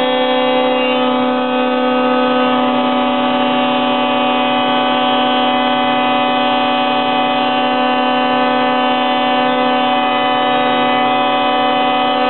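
Woodworking spindle moulder running at full speed with a steady, loud whine from its motor and spinning cutter head.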